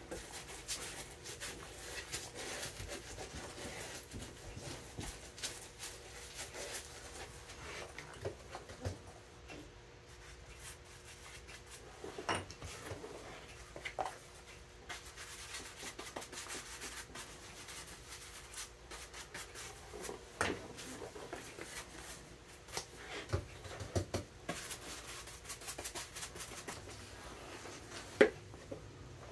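Glue brush rubbing and dabbing cement onto a boot's bottom, with light clicks and a few sharper knocks as the glue pot, cork pieces and boot are handled. A faint steady hum sits underneath.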